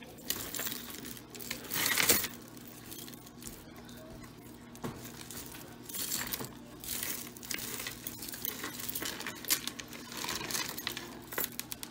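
Costume jewelry clinking and rustling as pieces are handled and sorted, in scattered bursts with a few sharp clicks.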